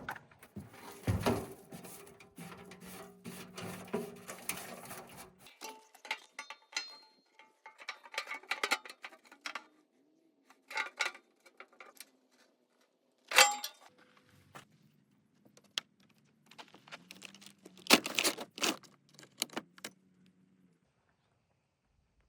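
Metal hardware and tools being handled during a gate opener installation: clinks, rattles and knocks in short edited bursts, with sharp metallic clanks about 13 seconds in and again around 18 seconds.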